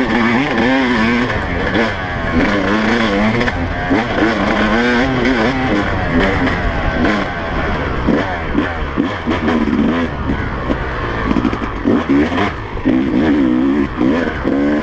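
2017 Yamaha YZ250 two-stroke single-cylinder engine revving, its pitch rising and falling again and again as the throttle is worked on a ride at speed.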